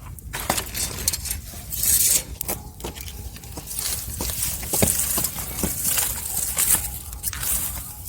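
Wood fire burning with irregular crackles and sharp pops, over a steady low rumble of the flames.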